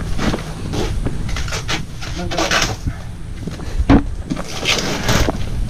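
Thin black plastic garbage bag crinkling and rustling in short bursts as its knot is worked open by hand, with a sharp knock about four seconds in.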